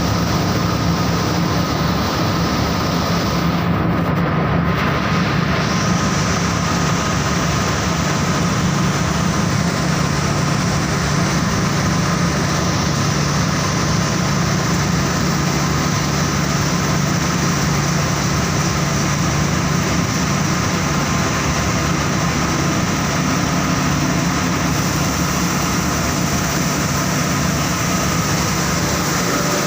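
Saurer JSC 330 carding machine running steadily: a dense, unbroken mechanical noise with a low hum and a fainter high whine.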